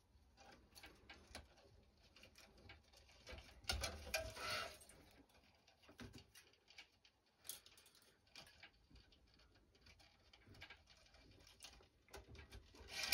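Synthetic gut string being woven by hand through the tight main strings of a racquetball racket on a stringing machine: faint scattered rustling and ticking of string on string, with a louder flurry about four seconds in.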